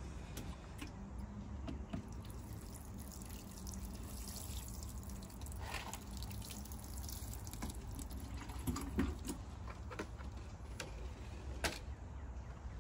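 Water running and dripping, with light clicks and knocks here and there over a low rumble.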